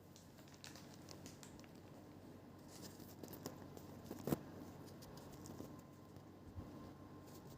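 Faint rustling and small scattered clicks from handling close to the microphone, with one louder tap about four seconds in, over a faint steady hum.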